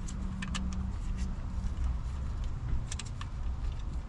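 Scattered light clicks and taps of hands and tools handling parts in a car's engine bay, with a small cluster of clicks about three seconds in, over a steady low rumble.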